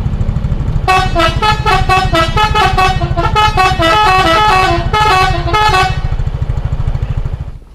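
Indonesian bus 'telolet' musical horn playing a fast tune of short, stepping notes, about four or five a second, for roughly five seconds. A low engine rumble runs underneath and continues after the tune ends, stopping just before the end.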